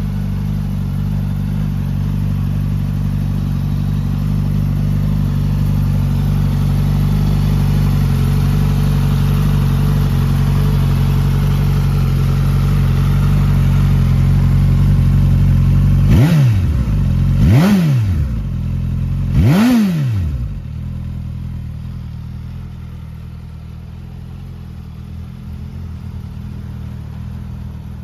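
2022 Suzuki Katana's 999 cc inline-four engine idling steadily, then blipped three times in quick succession a little over halfway through, each rev rising and falling within about a second, before settling back to idle.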